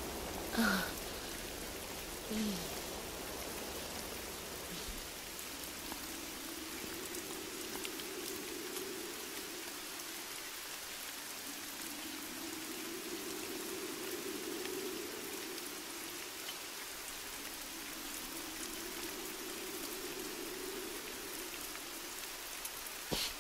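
Steady rain falling, an even hiss throughout, with a low wavering hum swelling and fading about three times in the middle.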